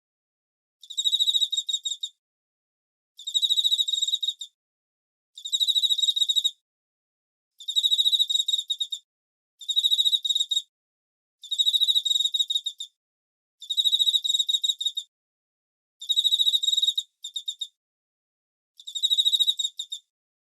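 Cricket chirping: about nine high-pitched trills of rapid pulses, each roughly a second long, repeating every two seconds or so with clean silences between.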